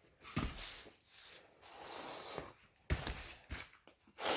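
Razor blade scraping across a plastic insulation retainer clip as its tab is trimmed, with a few short knocks as the clip is handled.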